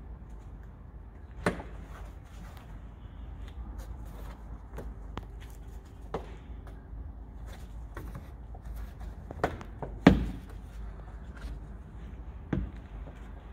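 Plastic clips of a VW Tiguan Mk2 rear wheel-arch trim being squeezed and popped out of their rubber grommets as the trim is pulled away from the body: a handful of sharp clicks and knocks, the loudest about ten seconds in.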